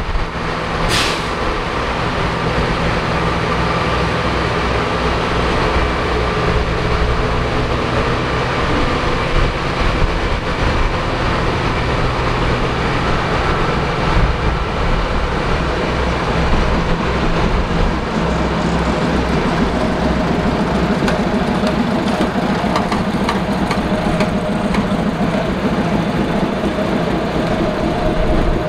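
Railway train with a heavy engine running: a steady, unchanging drone. A brief sharp high-pitched sound comes about a second in.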